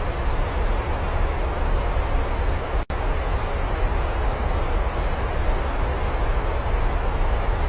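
Steady heavy rain noise with a deep low rumble under it, cutting out for an instant about three seconds in.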